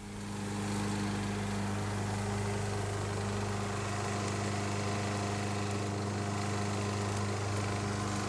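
Gasoline engine of a push lawn mower, converted to radio control, running steadily at an even speed.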